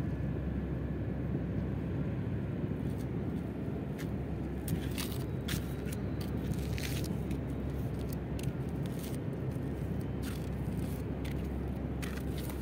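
Steady low outdoor rumble of harbour background noise, with scattered light clicks and crackles from about two and a half seconds in.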